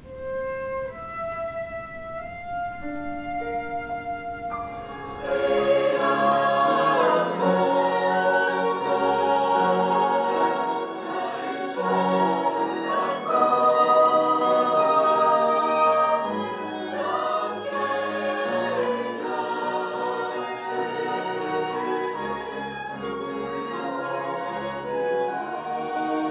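Solo flute playing a slow melody, then about five seconds in a mixed choir comes in singing, accompanied by flute and a string ensemble of violins, cello and double bass.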